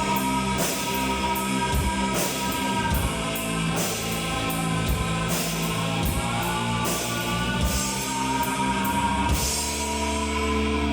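Live rock band playing: drum kit with regular cymbal crashes, electric guitar holding a long sustained note, and bass. Near the end the cymbal strikes give way to a steady ringing wash.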